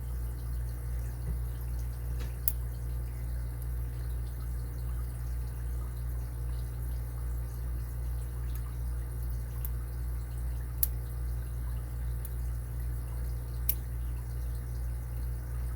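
A few sharp, faint clicks of a lock pick and tension wrench working the pins inside an Abus 80TI brass padlock, over a steady low electrical hum.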